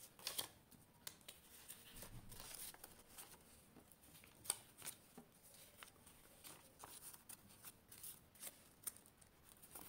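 Faint rustling and crinkling of paper banknotes being counted and handled, with scattered soft ticks and crackles as they are slid into a plastic zip envelope.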